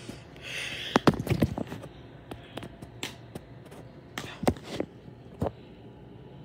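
Irregular thumps and knocks of footsteps and a handheld phone being carried and handled, with a brief rustle about half a second in.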